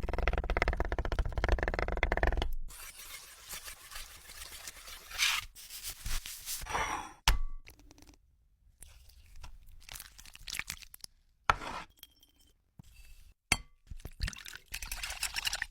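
Kitchen preparation sounds in quick, chopped-up cuts: a dense rapid clatter at first, then separate clinks of dishes or glass, scrapes and knocks, with abrupt silences between them.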